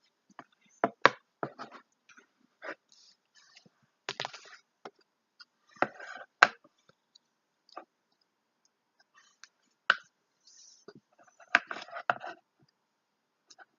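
Slime being poked and pressed with fingers: scattered sticky clicks and short squelching pops with silent gaps between.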